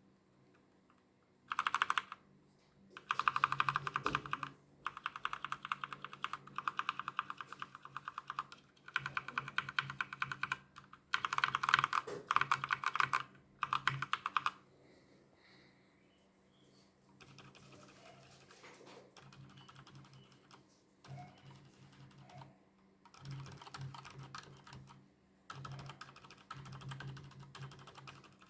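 Fast typing on a mechanical keyboard in bursts. For roughly the first half the keystrokes are loud, typical of Outemu Brown switches. After a short pause the typing goes on much more quietly, typical of Outemu Silent White switches.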